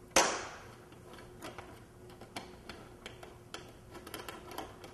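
Light, irregular metallic clicks of a 4 mm T-handle Allen wrench working the Allen bolts out of a motorcycle's fairing panels. One sharper, louder clack comes just after the start.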